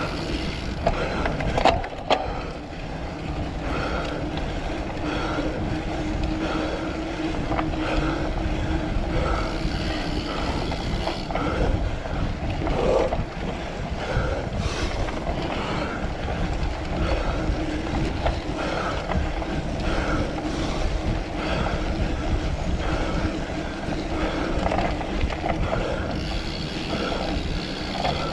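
Cyclocross bike being ridden hard over a rough course: a steady rolling and rattling noise from the tyres and bike, with wind on the microphone.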